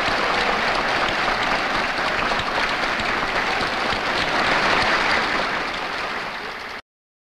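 A crowd applauding, many hands clapping, fading slightly in the last second or so and then cutting off abruptly near the end.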